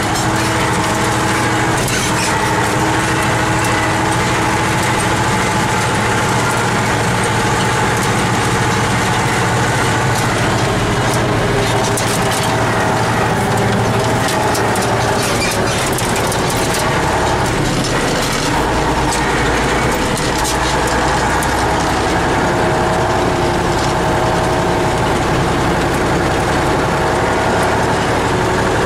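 Engine running steadily, heard from inside a moving vehicle's cab, with rattles and knocks from the ride over a rough dirt road about halfway through.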